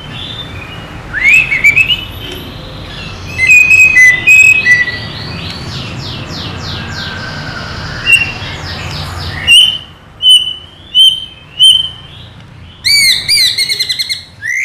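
White-rumped shama singing: a varied run of loud whistles, quick slurred phrases and chatter, then short sharp notes repeated in the second half and a fast rattle of repeated notes near the end.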